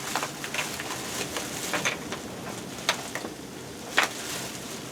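Faint steady sizzle of an egg frying, with a few sharp clicks and knocks from rummaging through a container, the loudest about four seconds in.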